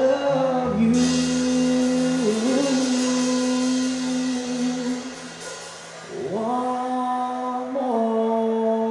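Live country band playing: a drum kit with cymbals under long held melody notes that slide between pitches, with a short lull about two-thirds of the way through.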